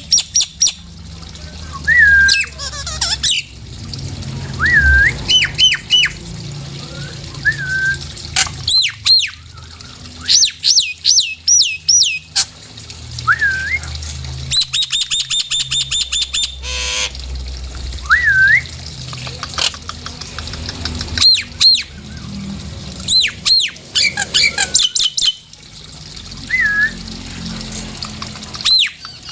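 Nias hill myna calling repeatedly: loud whistled notes that swoop down and back up, quick runs of sharp rising whistles, and one harsh squawk about halfway through, over a low steady hum.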